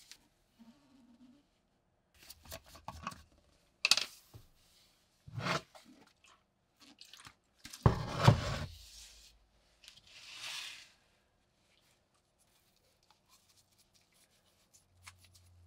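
Scattered handling sounds of a paper towel being torn, crumpled and rubbed, with clicks and knocks of a metal can of cleaner being handled. The loudest is a knock with a rustle about eight seconds in.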